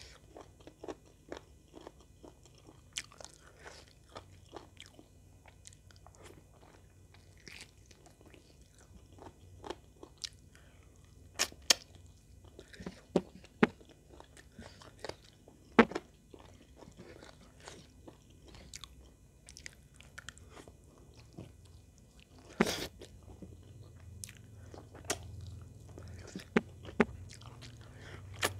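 Close-miked eating by hand of chicken in sweet soy sauce: chewing and biting, with scattered sharp clicks of uneven loudness.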